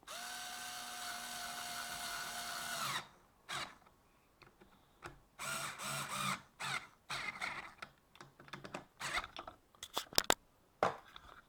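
Power drill-driver running a bolt in: a steady whine for about three seconds that stops abruptly, then several shorter bursts and a few sharp clicks.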